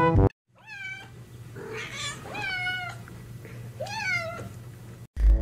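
Grey domestic cat meowing about four times, short calls that rise and then bend down, the last and clearest about four seconds in. Background music stops just after the start and comes back in near the end.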